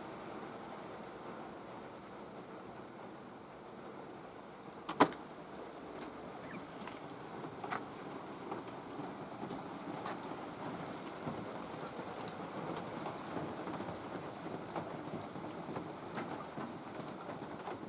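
Steady rain falling, with scattered drips and one sharp tap about five seconds in.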